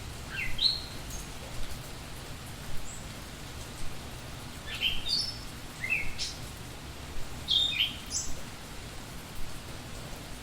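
A songbird singing short, quick rising phrases in several bursts, over the steady hiss of rain after a storm.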